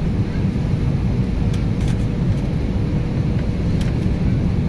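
Steady cabin noise inside an Airbus A320neo on approach: a low rumble of engines and airflow with a faint steady hum above it.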